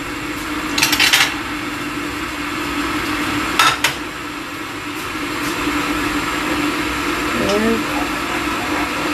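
Dishes and a pan clinking and clattering as a plate of food is set down and a pot is handled on a gas hob: a short rattle about a second in and two sharp clinks near four seconds, over a steady kitchen hum.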